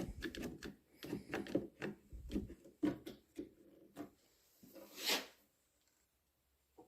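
A clamp being repositioned and tightened on a wooden workpiece: a run of light knocks and clicks over the first few seconds, then one short burst of hiss-like noise about five seconds in.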